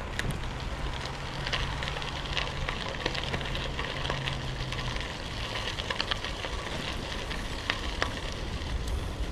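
Bicycle tyres rolling over a gravel trail: a steady crunching crackle dotted with many small pops and clicks from the stones, over a low rumble.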